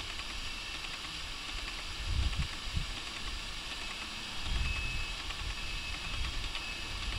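Steady outdoor background hiss, with a few low rumbles about two and four and a half seconds in and some faint scattered ticks.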